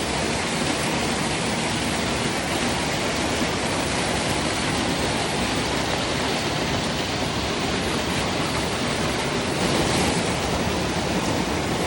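Waterfall rushing: a steady, even hiss of falling water, swelling slightly near the end.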